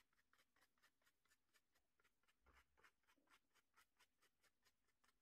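Very faint, rapid tapping of a stencil brush dabbing fabric paint onto a cloth pot holder through a plastic stencil sheet, several taps a second.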